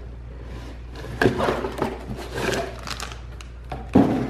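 Cardboard box being torn open along its tear strip and handled, with several short rustling, scraping noises and a sharp knock near the end.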